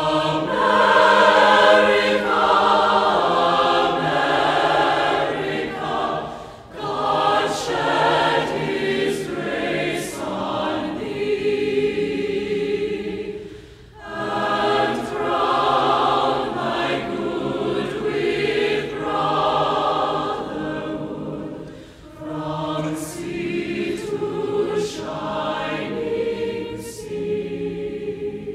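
Background music: a choir singing slowly in long sustained phrases, with short breaks about every seven or eight seconds.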